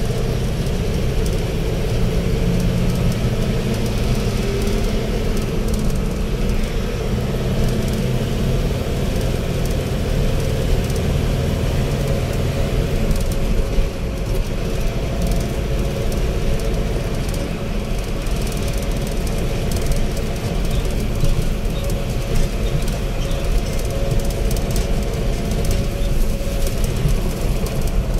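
Engine and tyre noise heard from inside a moving vehicle on a paved road: a steady low rumble, with an engine hum that fades about halfway through.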